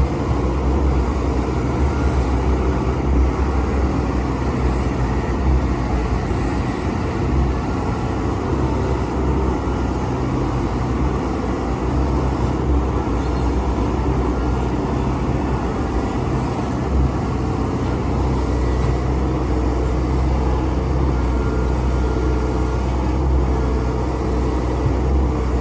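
Hitachi Zaxis excavator's diesel engine running steadily, a constant low drone without sharp knocks.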